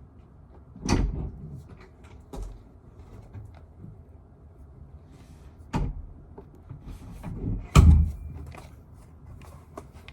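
A few knocks and clunks, like a door or cupboard being handled, with the loudest about a second in and near the end, and smaller ones between.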